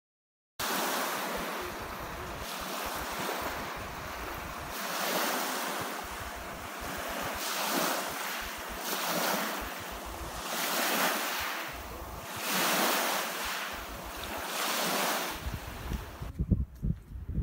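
Wind blowing hard on the microphone over choppy lake water, the rush of wind and small waves swelling and easing every second or two. Near the end it changes to fainter wind with irregular low buffeting thumps on the microphone.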